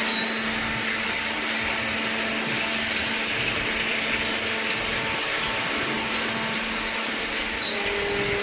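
Waste paper baler's electric motor and hydraulic pump running steadily, a constant hum over a whirring noise; a second, higher tone joins near the end.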